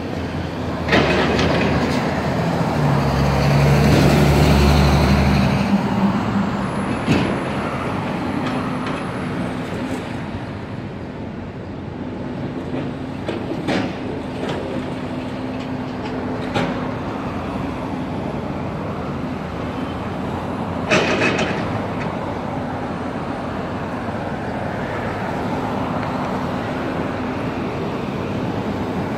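Excavator demolishing a building, its diesel engine running with sharp clanks and crashes of rubble every few seconds, over traffic passing on the road. The engine sound swells louder about three to six seconds in.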